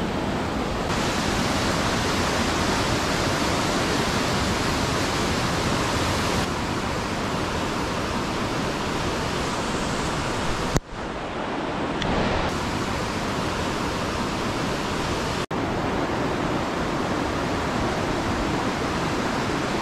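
Mountain stream rushing over rocks: a steady, even rush of water that drops out briefly twice, around the middle and again a few seconds later.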